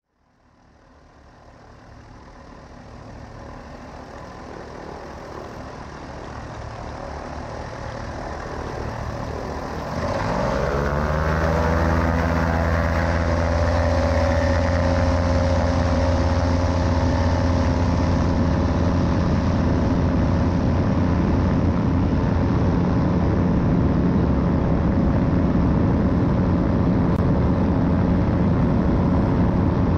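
Bautek Skycruiser trike's engine and pusher propeller, running at low power and growing louder. About ten seconds in the throttle opens for take-off: the engine note rises quickly and settles at a steady, loud full-power pitch through the ground roll and climb-out.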